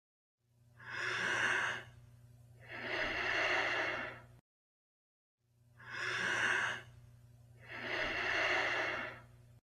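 Simulated breath sounds: two breaths, each a rush of air drawn in for about a second, then after a short gap a longer breath out. A low hum lies under each breath, and the two cycles are separated by a second of dead silence.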